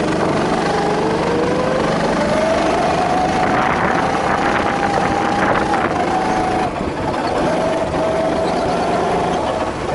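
Go-kart engine heard from on board as the kart accelerates. Its pitch climbs steadily for about five seconds and holds. It drops sharply as the throttle eases about seven seconds in, then holds steady again before dropping once more at the end.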